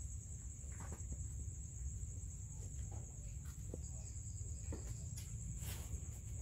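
Steady high-pitched trilling of an insect, over a low background rumble, with a few faint scattered taps and rustles.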